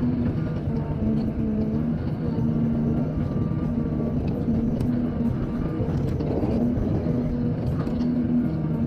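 Heavy earthmoving machine's engine running steadily, its pitch wavering a little as the load changes, with a few faint knocks.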